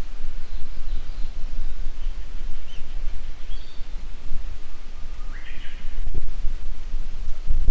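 Wind buffeting the microphone as a constant low rumble, with scattered small bird chirps above it. About four to five seconds in, a Japanese bush warbler sings one song: a held low note that jumps into a quick, higher phrase.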